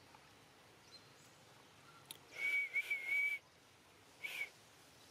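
A person whistling: one held high note of about a second with a brief break in it, then a second short note.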